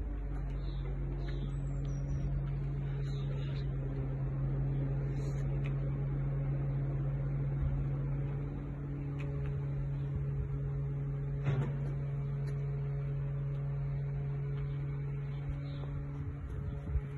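A crane's engine running at steady revs under load while the crane lifts a hot tub, a steady low drone.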